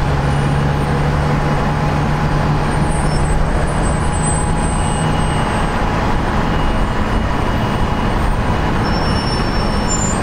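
Gulfstream G550 business jet's turbofan engines running at low power: a steady roar with a faint, thin, high whine. A low hum beneath it fades out about halfway through.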